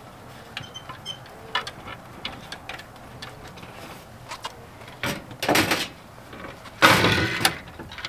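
Hands working inside a Suburban RV furnace compartment: small clicks and ticks of wire connectors and parts being handled, then two louder scraping rustles about five and seven seconds in as the plastic blower housing cover is moved against the furnace.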